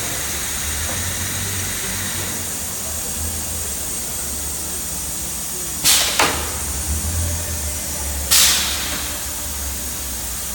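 Steady hum of factory machinery and a large shop fan, broken twice by short, sharp hisses of released compressed air, the second about two and a half seconds after the first.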